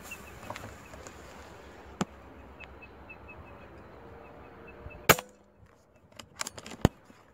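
A PCP air rifle fires once, a sharp crack about five seconds in, followed a second and a half later by a few quicker clicks and knocks. A fainter single click comes about two seconds in.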